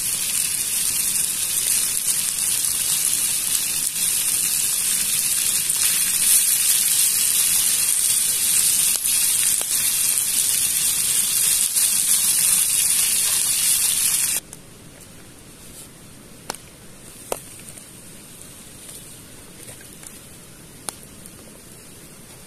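Tuna cubes sizzling in oil in a frying pan over a campfire, a loud steady hiss. About fourteen seconds in the sizzle cuts off, and a few sharp clicks follow as the fork and pan touch while the cooked pieces are moved onto a wooden cutting board.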